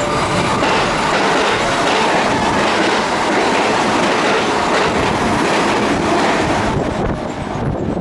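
Electric train running along the track, with steady wheel-on-rail noise and clickety-clack over the rail joints; the noise thins a little about seven seconds in.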